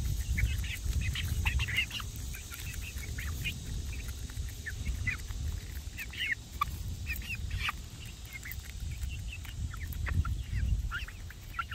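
A small flock of young hens making many short chirps and trills while pecking black soldier fly larvae from a hand, over a steady low rumble.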